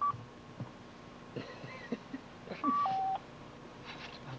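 Cell phone keypad tones as a number is dialed: one short beep at the very start, then about two and a half seconds in two beeps back to back, a higher one followed by a lower one.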